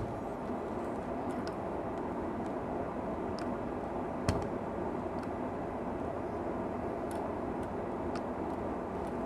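Steady blower-like air noise, with a few faint clicks and one sharper tap about four seconds in.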